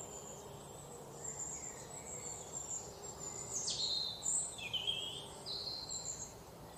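Birds chirping and calling over a steady background hiss, with a few louder chirps and sharp falling whistles about halfway through.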